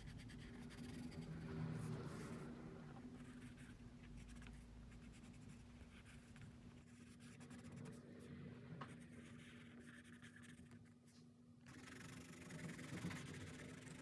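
Colored pencil scratching faintly across watercolor paper in short shading strokes. The strokes thin out in the middle and pick up again about twelve seconds in, over a steady low hum.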